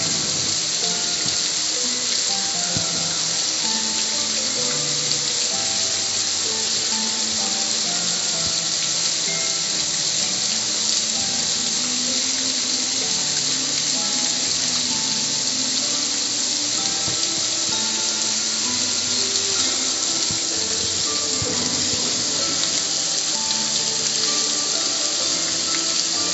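Garden-hose spray nozzle spraying a steady jet of water onto the metal lid of a gas grill, a continuous hiss. Background music with short held notes plays under it.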